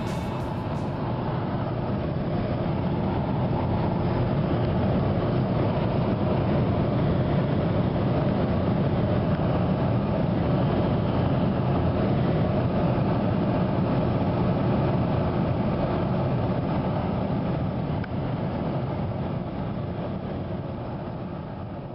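Steady road and engine noise of a moving vehicle, heard from inside it. The noise fades down over the last few seconds.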